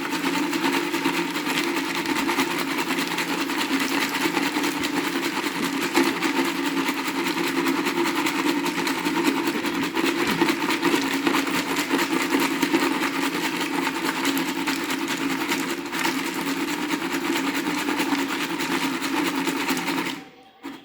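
Tortoise-shaped baby rattle toy making a continuous rapid rattling with a steady hum underneath, cutting off suddenly near the end.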